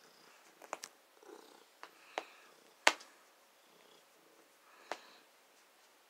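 Domestic cat purring softly, broken by a handful of sharp clicks and taps, the loudest about three seconds in.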